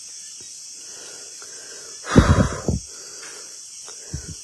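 Night insects chirring steadily in the background. About two seconds in comes a loud, short breathy rustling noise lasting under a second, and a softer one near the end.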